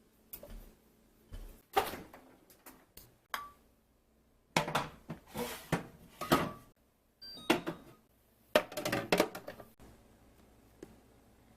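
Kitchen containers and food packaging being handled: a string of short clatters and rustles with brief pauses between them.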